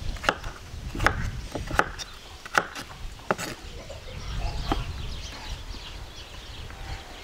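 Knife chopping on a wooden cutting board: five sharp strokes about three quarters of a second apart, then softer, scattered sounds in the second half.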